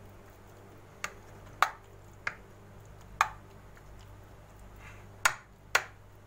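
A metal spoon clinking against a metal baking tray about six times at uneven intervals as penne pasta is spread in it: short, sharp clicks.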